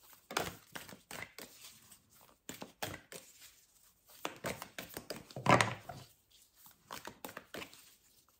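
Tarot cards being shuffled and handled: a run of short papery flicks, rustles and taps, with one louder thump about five and a half seconds in.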